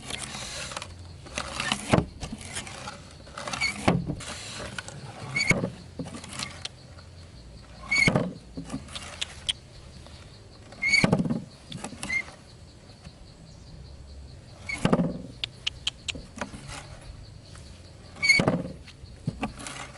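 Quail giving short high squeaks over bursts of scuffling, repeating every two to four seconds.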